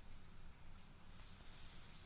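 Faint room tone: a steady low hum with light hiss, and no distinct sound.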